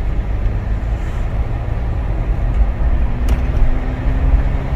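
Car driving: a steady low rumble of engine and road noise. A faint steady hum joins about halfway through, and there is a single click a little after three seconds in.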